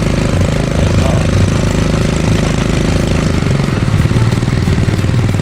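ATV engine running steadily, with a fast, even firing pulse.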